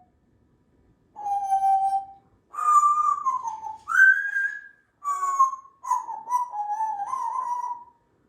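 Congo African grey parrot whistling five separate whistled phrases: a level note, one falling, one rising, a short one, and a last wavering phrase of about two seconds.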